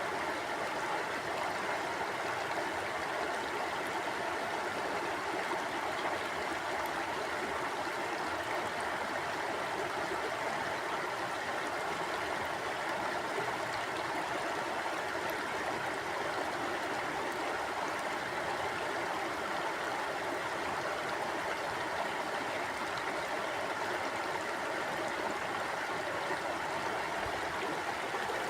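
Mountain stream flowing steadily over rocks, an even rushing and gurgling of water.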